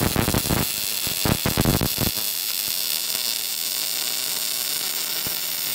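Electric arc welding on steel: the arc crackles and sputters for the first two seconds, then settles into a steady frying hiss.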